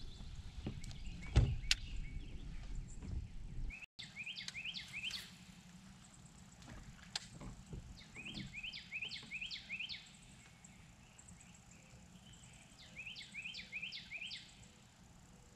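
A low rumble with a few sharp knocks, the loudest about a second and a half in. After a cut just under four seconds in, a songbird sings three short phrases of quick repeated notes, a few seconds apart.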